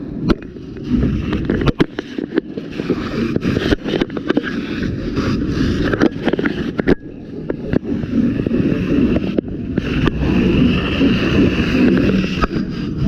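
A fire hose stream being worked on a fire: a steady low rumble and rushing hiss, broken by many sharp knocks and clatters.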